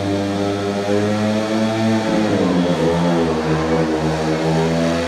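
Speedway motorcycles' single-cylinder 500cc methanol engines running on the track, their note dropping in pitch about two seconds in as the riders ease off, then wavering at a lower pitch.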